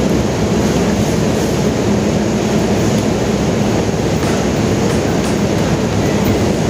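Steady, loud city traffic noise with a constant low engine hum underneath.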